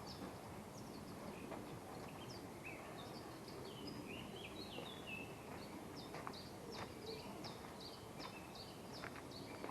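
Small birds chirping, with many short repeated chirps and a few gliding calls around the middle, over a faint, steady outdoor hiss.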